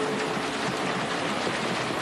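Heavy rain falling, a steady dense hiss, with a soft held note of background music underneath.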